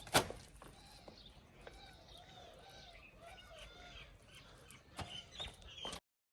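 Faint bird calls, a series of short arched chirps repeating through the middle, with a sharp click just after the start and a few knocks near the end; the sound cuts off abruptly about six seconds in.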